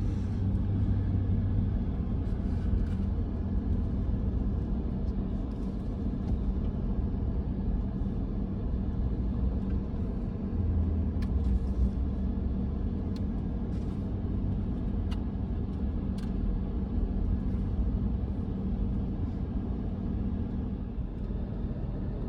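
Car driving along: a steady low rumble of engine and tyre noise, with a few faint clicks.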